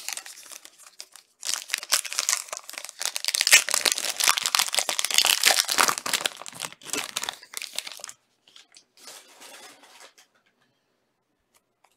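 Plastic wrapper of a Panini Obsidian soccer trading-card pack being torn open and crumpled in the hands. Dense crackling starts about a second and a half in, is loudest in the middle, and thins to a light rustle before stopping near the end.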